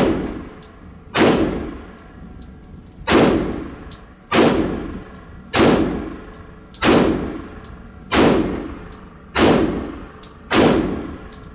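An FN .45-calibre pistol firing nine single shots at a slow, fairly even pace, about one every second and a quarter with one longer pause near the start; each shot rings out with a long echo. Faint clinks sound between the shots.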